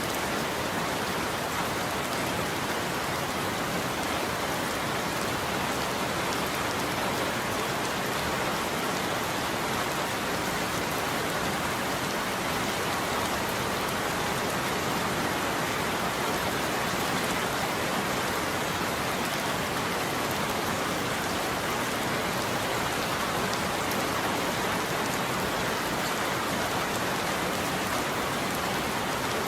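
Steady heavy rain falling on a roof: an even, unbroken hiss with no thunder.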